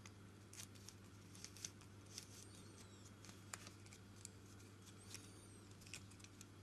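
Faint light clicks and small high squeaks of a hex driver turning a small Loctited bolt into a plastic RC helicopter rotor-head part, scattered irregularly over a low steady hum.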